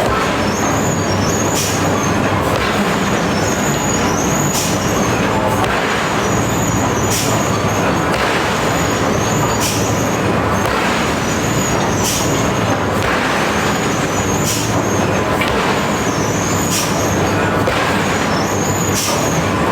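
Machine-driven hammer striking iron: a sharp metallic strike about every two and a half seconds over the loud, steady running of heavy machinery.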